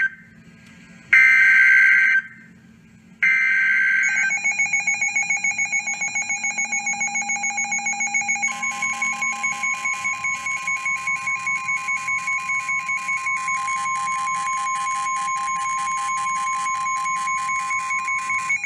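NOAA Weather Radio Emergency Alert System broadcast. The SAME header's digital data bursts play first: the tail of one screechy burst, then two more about a second apart. These are followed by a rapidly pulsing two-tone alarm beep. About halfway in, the steady 1050 Hz weather radio warning tone sounds over the beeping and stops just before the end, while the pulsing alarm keeps going.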